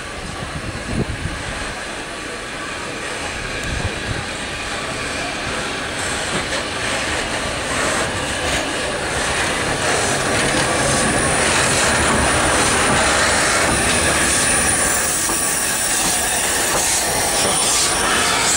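A train running past at close range on the rails: a dense rumble and hiss that grows steadily louder over the first half, with high wheel squeal and clicks from the wheels near the end.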